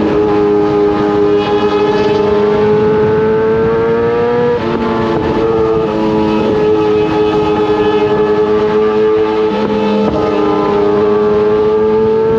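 Kawasaki sport bike's inline-four engine pulling steadily under acceleration, its pitch climbing slowly and dropping sharply at two upshifts, about four and a half seconds in and again about ten seconds in.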